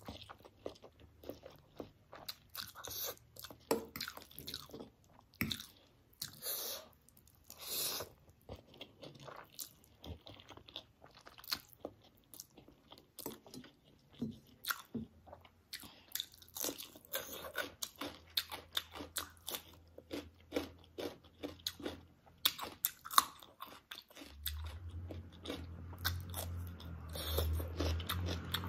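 A person slurping up a forkful of spicy instant noodles, then chewing with many short, irregular wet smacks and clicks. A low steady hum comes in near the end.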